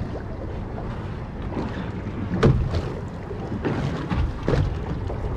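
Steady low rumble of a fishing boat at sea, its motor running, with wind on the microphone. There is one sharp knock about halfway through.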